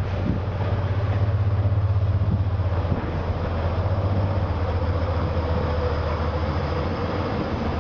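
Freightliner Class 70 diesel locomotive passing close by with a container train: a steady low engine drone that fades after about three seconds, giving way to the rolling rumble of the container wagons going past.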